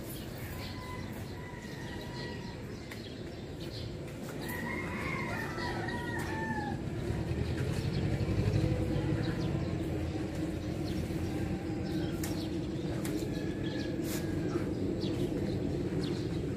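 A rooster crowing, loudest about five seconds in, with a steady low hum coming in during the second half.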